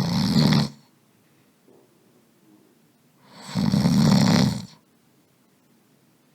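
A person snoring: two snores about three and a half seconds apart, the first fading out under a second in and the second around four seconds in.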